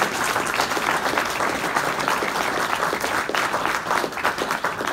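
Audience applauding, a dense steady clapping of many hands that begins to die down near the end.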